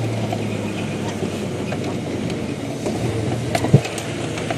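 Game-drive vehicle's engine running steadily with a low hum, with two sharp knocks close together a little over three and a half seconds in.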